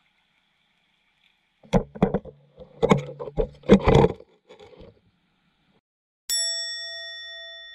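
Camera in its aluminium underwater housing knocking and scraping against reef rock, a rapid series of sharp clanging knocks about two to four seconds in as it crashes into the reef. Near the end a single bell-like chime rings out and slowly fades.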